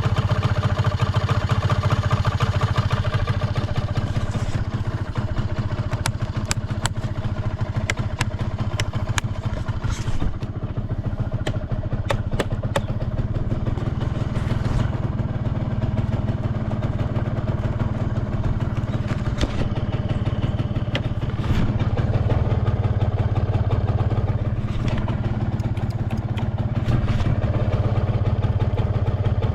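Honda G'Dash scooter's 50cc two-stroke engine idling steadily, with a run of light clicks a few seconds in; the seller calls it free of abnormal noise.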